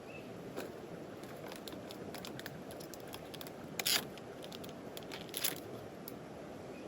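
Steady flow of a stream, with scattered small clicks and two louder crunching rustles about four and five and a half seconds in.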